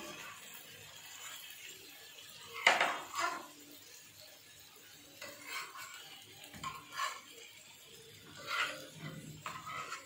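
Metal tongs scraping and clinking against a flat iron tawa as chicken leg pieces are turned over, in a handful of short scrapes, the loudest about three seconds in.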